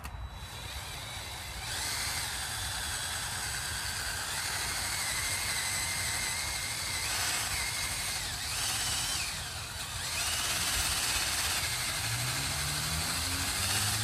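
Cordless drill spinning a scrub-brush attachment against an alloy wheel: a steady motor whine over brushing noise. It picks up about two seconds in and dips in pitch a couple of times partway through as the brush is loaded.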